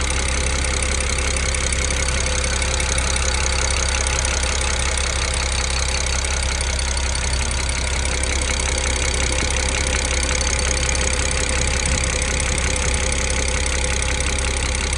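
BMW N54 twin-turbo straight-six idling steadily with its top engine cover off, the high-pressure direct fuel injectors ticking rapidly and loudly. That injector noise is normal for this engine; it is usually muffled by the cover's sound-absorbing foam.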